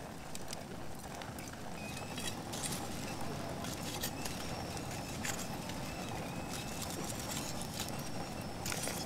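Aluminium mess tin boiling over on the stove: steady bubbling and sputtering, with scattered sharp crackles and faint hissing as the overflow spits on the hot metal.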